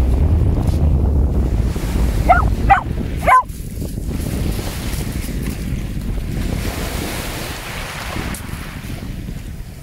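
A dog gives three short, high barks in quick succession over waves washing in the shallows. Wind buffets the microphone, then drops away suddenly right after the third bark.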